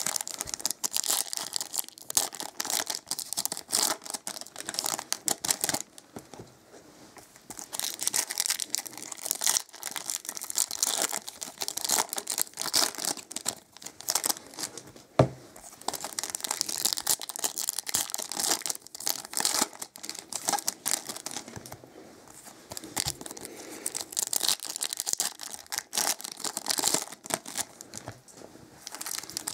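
Foil Topps Chrome trading-card packs being torn open and crinkled by hand, one after another, in a dense irregular crackle with a short lull about six seconds in. A single sharp click halfway through stands out as the loudest sound.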